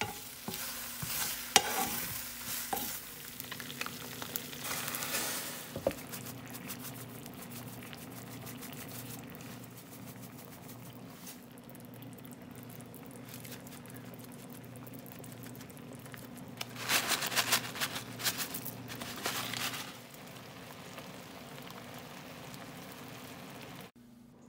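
Food sizzling in a nonstick frying pan on the stove: sausage slices in sauce, then baked beans. There are a few sharp clicks near the start and a louder stretch of sizzling and stirring about 17 seconds in.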